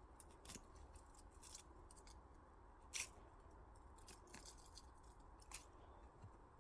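A few short, sharp clicks and snips over a faint steady low hum, the loudest about three seconds in.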